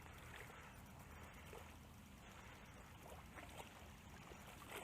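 Near silence: faint, gentle lapping of water at the shoreline, with a few soft small splashes or ticks.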